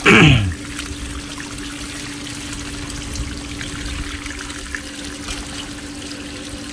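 Water trickling and pouring steadily while field frogs are being gutted and cleaned, over a steady low hum. Right at the start there is a short, loud sound that falls in pitch.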